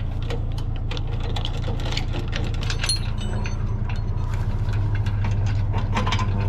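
A vehicle engine idling steadily, with metal clinks and rattles from trailer safety chains being handled at the ball hitch.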